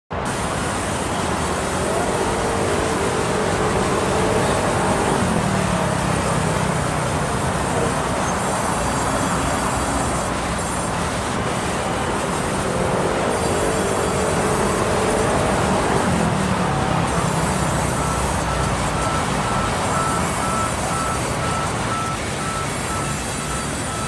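Sawmill saw running and cutting through logs: a loud, steady machine noise whose pitch shifts down and back up twice, with a faint steady whistle joining in the second half.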